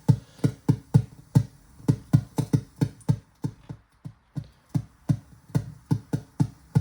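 Percussion track playing through channel 3 of a Focusrite Liquid4Pre preamp, the channel under test for reported noise. Sharp drum hits come a few per second, with a brief lull about three and a half seconds in.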